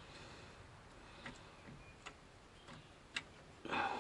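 A few faint, irregular metal clicks and ticks from a large hydraulic line fitting being worked into place by hand, then a short louder scrape near the end.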